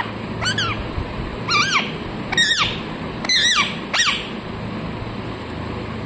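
Rose-ringed parakeet calling: about six short squawks in the first four seconds, each rising then falling in pitch, then it stops.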